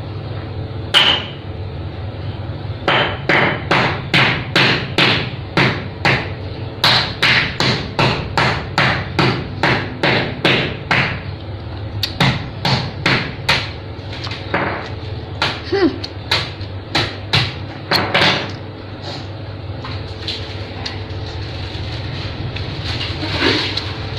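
Sharp, regular knocking, about three strikes a second, in runs with short pauses from a few seconds in until about three-quarters of the way through, after a single knock near the start. A steady low hum runs underneath.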